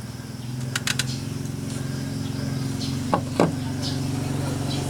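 A steady low machine hum that grows slightly louder, with a quick run of clicks about a second in and two short falling squeaks a little after three seconds.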